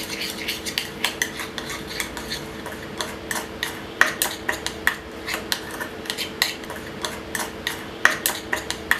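A spoon stirring ground black pepper into honey, clicking and scraping against its container in quick irregular taps, several a second, as the paste is mixed. A faint steady hum runs beneath.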